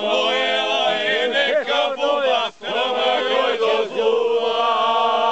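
A group of men singing together without accompaniment, several voices holding long notes at once, with a brief break about two and a half seconds in.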